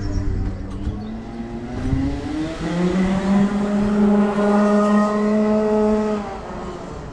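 Two-stroke racing kart engine revving up, its note rising and then holding steady at high revs for about three seconds, before dropping away near the end as the kart moves off.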